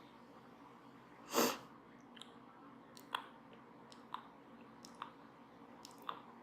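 Brush bristles working over a microphone: one short loud rush of noise about a second and a half in, then light sharp ticks about once a second.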